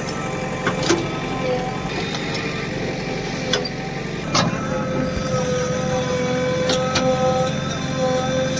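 JCB backhoe loader's diesel engine running under load with a steady whine as the excavator bucket digs and tips soil, broken by a few sharp knocks.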